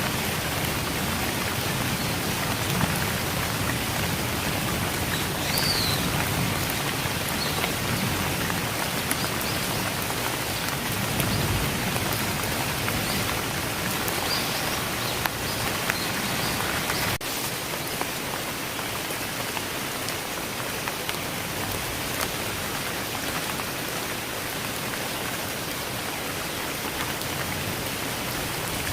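Steady rain falling, a dense even hiss of drops on surfaces. A little past halfway the low rumble thins out and it becomes slightly quieter.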